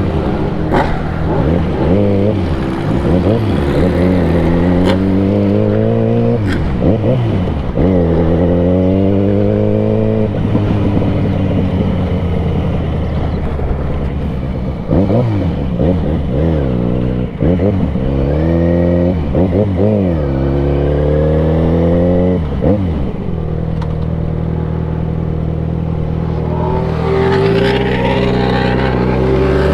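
Motorcycle engine accelerating hard through the gears. Its pitch climbs and drops back at each upshift, over and over, then holds steadier for a few seconds before climbing again near the end.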